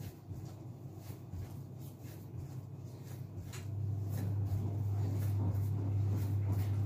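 Fondant being kneaded and pressed by hand on a counter, giving faint soft knocks and rubbing, under a steady low hum that grows louder a little past halfway.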